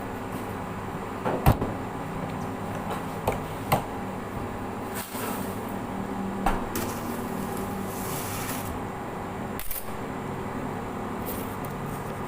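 A handful of short knocks and clatters, typical of kitchen handling on a work surface, over a steady hum. The sharpest knock comes about a second and a half in.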